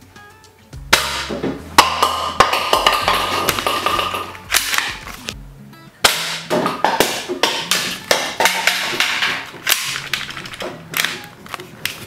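Two shots from a manual toy AWM sniper rifle, about a second in and again at six seconds. Each is followed by hollow plastic toy bowling pins knocking over and clattering on a tabletop for a few seconds, over background music.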